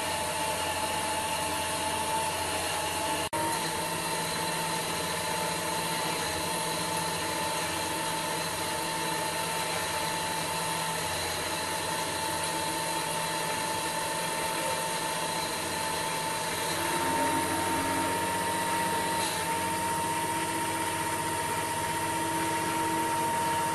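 775 DC hobby motor spindle running at 16 volts with a steady whine, a 2.5 mm cobalt drill cutting dry into cast iron under hand feed.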